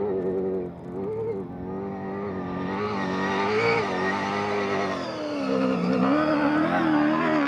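Toyota Hilux rally truck's engine revving up and down repeatedly as it drives through soft sand, growing louder as it comes closer.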